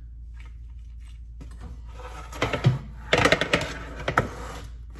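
Objects being handled: a quick cluster of sharp knocks and clatters, starting about two seconds in and stopping just after four seconds, after a quiet start.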